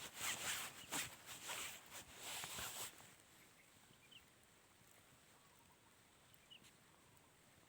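Rustling and handling noise for about three seconds, then quiet outdoor background with a few faint, short high chirps.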